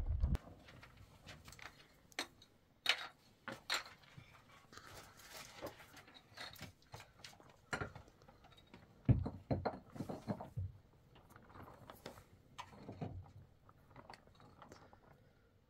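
Scattered light knocks and clicks at an irregular pace, the loudest about nine seconds in.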